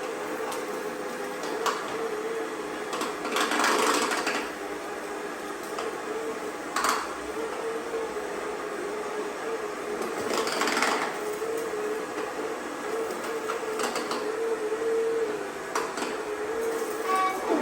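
Cheap robot vacuum running: a steady motor whine that wavers slightly in pitch, with three louder bursts of noise about three, seven and ten seconds in, as it sweeps over Nerds candy, which it crushes as it swallows.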